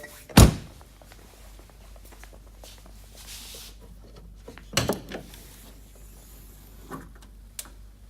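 Handling knocks and thumps: a loud thump about half a second in, a second one just before five seconds, and lighter knocks near the end.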